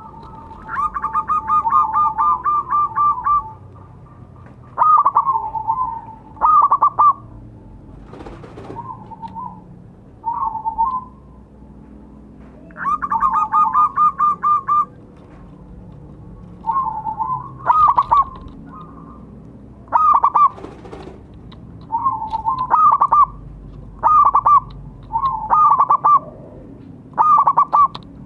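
Zebra dove (perkutut) cooing: short phrases of quick, trilled coos repeated every second or two, with two longer rapid stuttering runs, one just after the start and one about halfway through.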